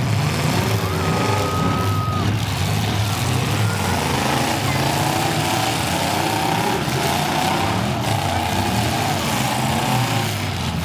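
Several demolition derby cars' engines running and revving loudly as the cars drive around the dirt arena.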